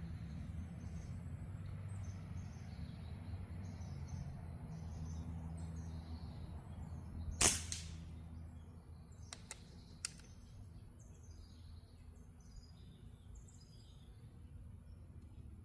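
A single airgun shot about halfway through, a sharp crack with a short tail, followed a couple of seconds later by two faint clicks. Faint bird chirps sit over a low steady rumble.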